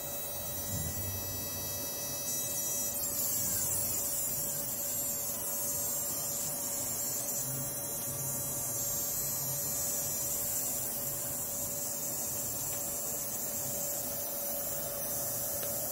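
Fuel injector solenoid buzzing as a function generator drives it on and off at a few hundred times a second through a transistor driver. The buzz drops in pitch a few seconds in as the drive frequency is turned down.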